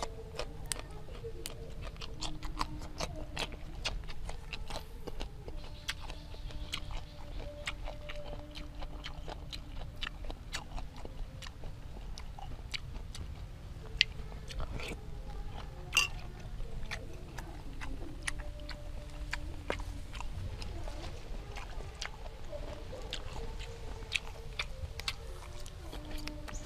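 Close-miked chewing and wet mouth clicks as grilled apple snails and fresh herbs are eaten, a steady run of small clicks with a few sharper ones.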